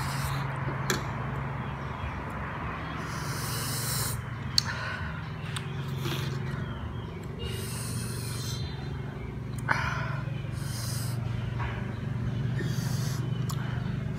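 Close-up eating sounds of sour lemon slices with spicy chilli salt: several short slurps and sharp breaths through the mouth. There are a few sharp clicks of a metal spoon against the plate, over a steady low hum.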